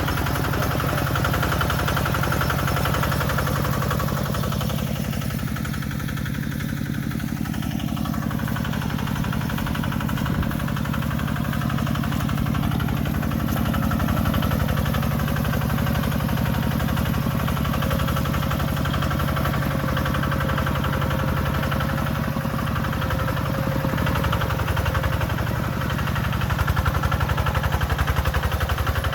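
Tractor engine running steadily with an even, rapid firing beat, getting a little louder near the end.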